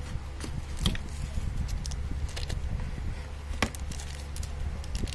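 A phone's cardboard box and packaging being handled by hand: a few sharp knocks and taps, the clearest about a second in and again shortly before four seconds, over a steady low hum.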